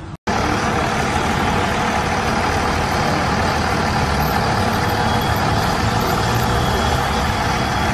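A heavy vehicle's engine idling steadily amid street noise. It starts just after a brief dropout at the very beginning.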